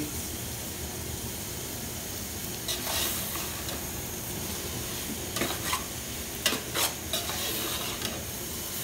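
Metal spoon stirring vegetables and snails frying in an aluminium pot, with a steady sizzle throughout. The spoon gives a few louder scrapes against the pot at about three seconds, five and a half seconds, and near seven seconds.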